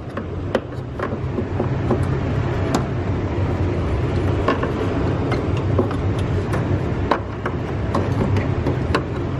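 Metal pick tool prying and scraping at a plastic push-pin clip, with irregular sharp clicks of metal on plastic over a steady low hum.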